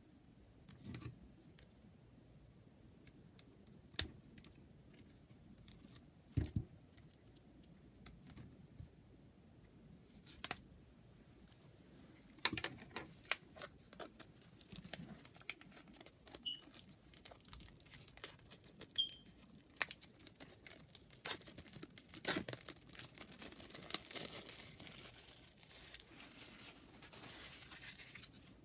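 Unboxing sounds: packaging crinkling and tearing as it is opened, with scattered sharp taps and clicks of boxes and items being handled. It starts with a few separate taps, then the rustling grows busier and turns into steadier crinkling near the end.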